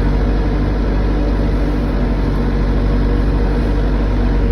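Backhoe's diesel engine running steadily, with a continuous low engine hum.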